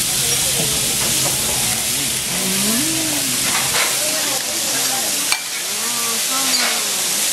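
Kobe beef frying on a hot steel teppanyaki griddle: a steady sizzling hiss.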